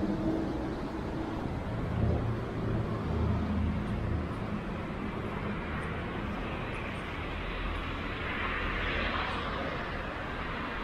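Road traffic on a city street: motor vehicles running close by with a low engine hum, and the tyre hiss of a passing car swelling and fading near the end.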